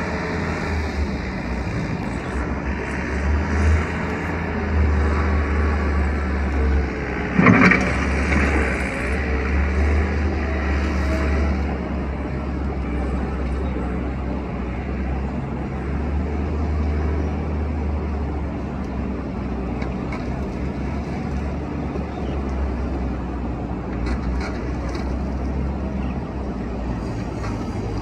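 Skid-steer loader engine running steadily as the machine drives and works sand, with one sharp knock about seven and a half seconds in.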